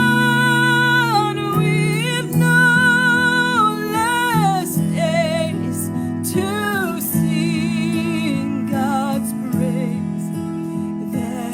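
Slow gospel worship song: a solo voice sings a melody with vibrato over sustained instrumental chords.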